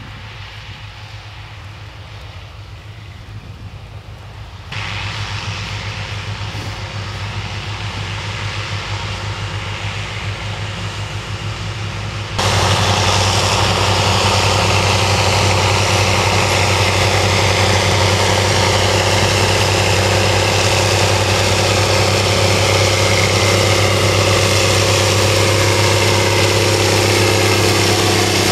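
Diesel engines of farm machinery running steadily: a combine and grain-cart tractor at a distance, then a rubber-tracked tractor pulling a strip-till rig close by. The engine hum jumps louder in two sudden steps, about 5 seconds in and about 12 seconds in.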